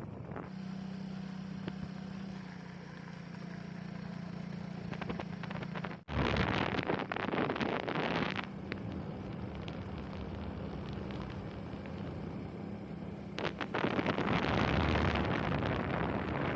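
Motorcycle engine running steadily on a gravel track. Two stretches of loud rushing wind noise hit the microphone: the first comes right after a brief dropout about six seconds in, the second near the end.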